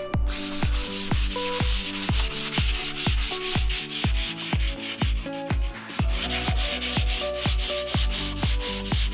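Sandpaper rubbed by hand back and forth over a plywood panel, a steady scratchy hiss. Under it runs background electronic music with a steady kick-drum beat.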